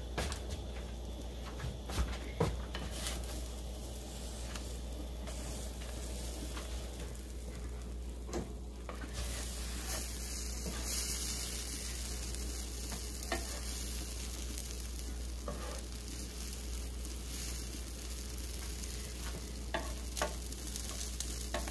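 An egg omelette frying on a flat griddle with a steady sizzle. A spatula gives a few short scrapes and taps as the omelette is rolled over.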